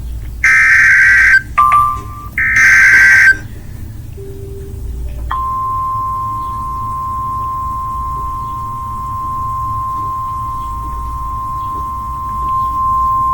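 Emergency Alert System SAME header: two one-second bursts of digital data tones with a short beep between them. After a pause, a single steady alert tone around 1 kHz, the weather radio warning alarm, starts about five seconds in and holds.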